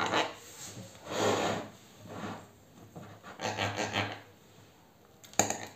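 Knife sawing through a chocolate-glazed colomba Easter cake, the blade rubbing through the crust in about five separate strokes roughly a second apart.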